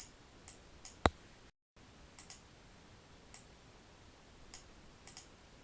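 Scattered light clicks of a computer mouse, about one or two a second, with one sharper, louder click about a second in. A brief gap of dead silence follows that loud click.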